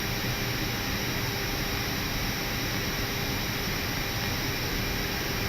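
Steady hiss and hum inside an Airbus A319 cockpit during the start of the number 1 engine, with a few faint steady tones under the noise.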